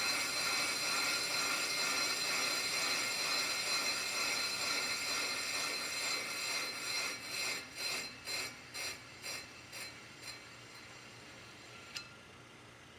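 A Pro-Cut on-car brake lathe's cutting bits shaving a spinning 1998 Jeep Cherokee brake rotor, a steady metallic scraping with a high ringing. About six seconds in, the cutting breaks into pulses about twice a second that fade away as the cut ends, then one sharp click near the end.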